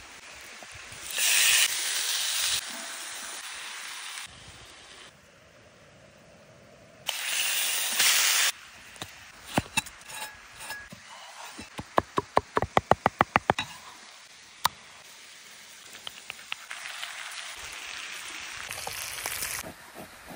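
A cast-iron grill pan sizzling in two loud spells of a second or two each. Then a quick run of about a dozen knife chops on a wooden board, roughly seven a second, and a longer, softer sizzling hiss near the end.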